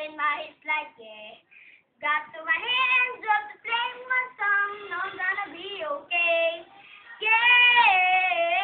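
A young boy singing unaccompanied, with a short break about a second and a half in and a long held note near the end.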